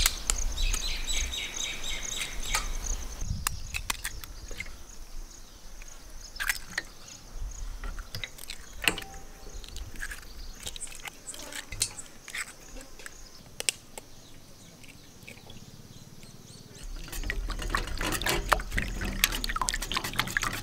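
Eggs cracked one after another against the rim of a stainless steel bowl, sharp taps at irregular intervals with the eggs dropping into the bowl. In the last few seconds a wire whisk beats the eggs in the metal bowl, a dense rapid clatter.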